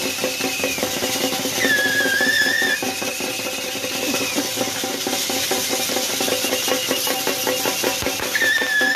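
Music with drum beats over a steady drone, and a high wavering melody line that comes and goes in phrases of about a second.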